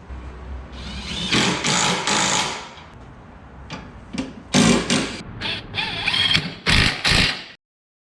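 Power tool run in short bursts: one longer run of about two seconds, then three shorter ones, cutting off abruptly near the end.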